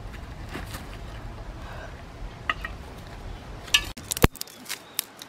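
Scattered light clicks and knocks of hard objects being handled: a few in the first seconds, then a quick cluster after about four seconds with one louder knock. Small hearth stones and dry twigs being moved about on gravel by hand.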